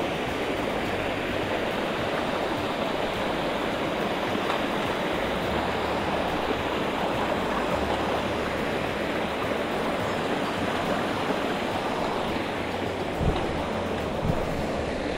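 Small mountain stream tumbling over rocks in little cascades: a steady rushing of water. Two short knocks come near the end.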